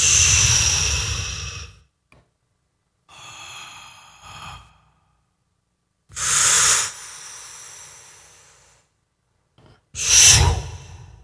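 Mouth-made breathy whoosh sound effects played back after processing with a Waves plugin: a loud hissy burst at the start that fades out over about two seconds, a fainter pair a few seconds later, then two more loud bursts, about six and ten seconds in, each trailing off slowly.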